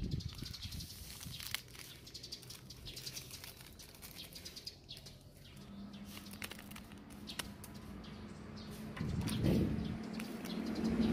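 Plastic and foil packaging crinkling and rustling in the hands, with scissors snipping through a foil seasoning sachet. A low steady drone builds near the end and becomes the loudest sound.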